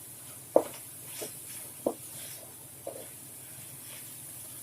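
A spatula stirring masala that is sautéing in a pan, with a light sizzle. The spatula knocks against the pan four times in the first three seconds, loudest about half a second in and again just before two seconds.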